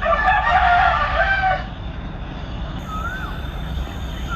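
A rooster crowing once, a single call of about a second and a half at the start. Later a small bird gives a short rising-and-falling chirp twice, over a steady low rumble.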